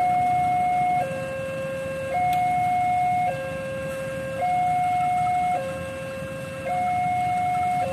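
Railway level-crossing warning alarm sounding with the barriers down, alternating between a higher and a lower electronic tone about every second, higher, lower, higher, lower and so on, seven tones in all. It signals an approaching train.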